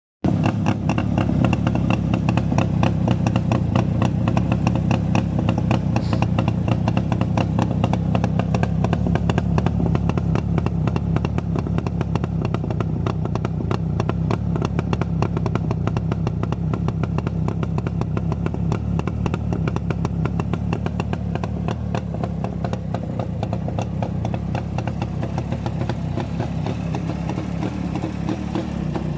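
Jawa motorcycle engine running steadily with a rapid, even run of exhaust pulses. The pitch shifts slightly near the end.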